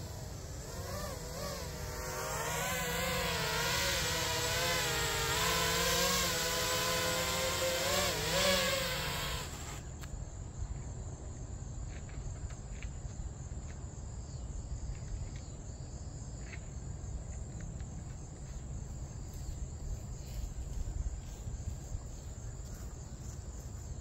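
FPV racing quadcopter's four Five33 Champion Edition 2207 2070kv brushless motors whining as it flies, the pitch swinging up and down with the throttle and getting louder about two seconds in. The motor sound cuts off suddenly about ten seconds in, leaving faint insect chirping.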